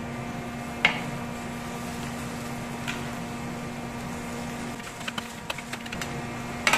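A metal ladle clinking and scraping against a carbon-steel wok as braising pork belly in liquid is stirred, with a sharp clink about a second in, another near three seconds, a run of small ticks later and a loud one at the end. A steady hum sits underneath.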